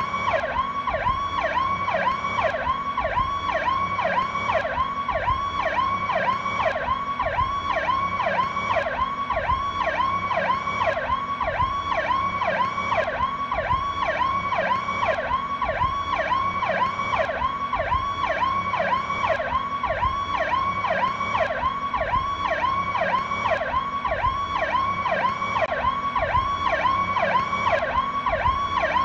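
Police car's Powercall electronic siren on a fast yelp: a rapid rising-and-falling wail repeating about three times a second, steady and unbroken.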